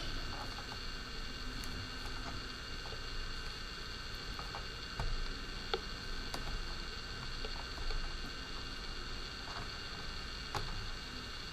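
A few faint clicks and small taps from a screwdriver and the drone's plastic shell being handled while the last screw is taken out, over a steady electrical hum.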